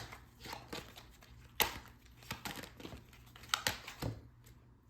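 Tarot cards being shuffled and handled: light rustling with a few scattered sharp snaps of card against card.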